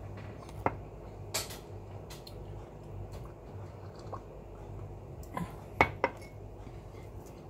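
Scattered light clicks and taps of a meal eaten by hand from a plate, with a drinking glass handled, the sharpest clink about six seconds in. A faint steady low hum runs underneath.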